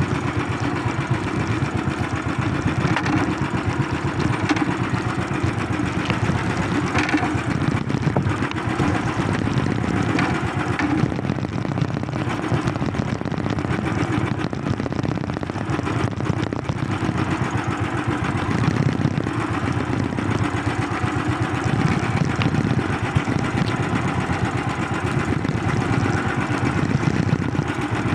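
A small engine running steadily at an even speed throughout.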